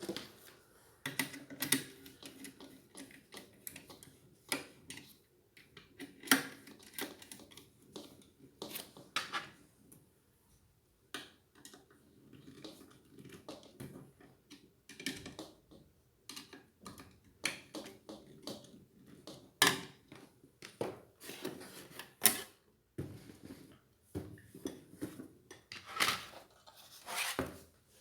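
Irregular clicks, taps and light clatter of small fan parts being handled and fitted by hand, with a few sharper knocks.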